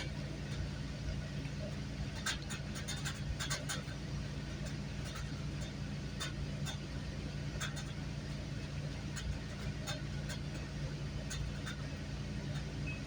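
GO Transit commuter train running along the line, heard from inside a passenger coach: a steady low rumble and hum with irregular sharp clicks and rattles from the wheels and car body.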